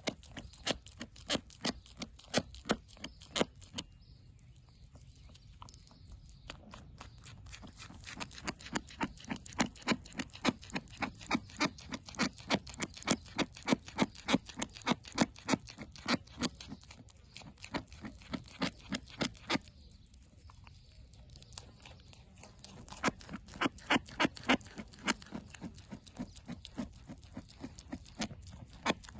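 Young goat chewing apple close to the microphone: a rhythmic crunching, about two to three chews a second, stopping twice for a couple of seconds, about four seconds in and about twenty seconds in.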